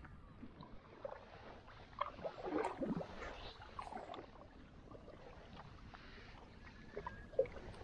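Kayak paddle strokes in calm water: irregular splashes and drips off the blade against the hull, busiest a couple of seconds in, with one sharp tap near the end.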